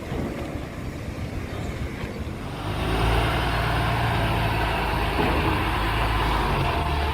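A machine engine running steadily with a low hum, becoming clearly louder about two and a half seconds in.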